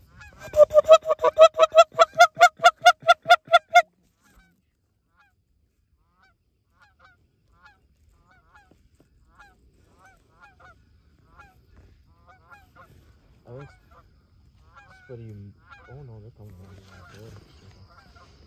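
Goose honking: a loud, rapid run of about sixteen even honks lasting some three seconds, then fainter, scattered honks of geese farther off.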